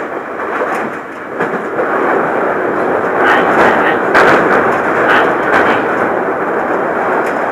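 Hankyu Kyoto Line train running, heard from inside the car: a steady rumble of steel wheels on the rails that grows louder around the middle, broken by several irregular sharp clacks and knocks as the wheels pass over rail joints.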